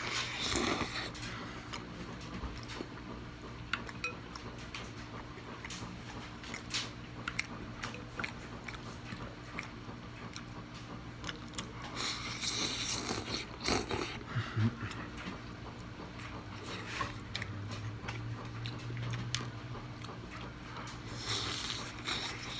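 Close-up eating sounds: wet chewing and bites of a soft cheese-filled tortilla, with a long slurp of ramen noodles about twelve seconds in. Louder sucking bites come at the start and near the end.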